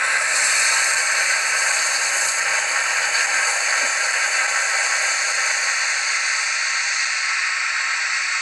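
Steady steam hiss from the Rivarossi Gr685 steam locomotive model's HM7000 sound decoder, easing off slightly toward the end.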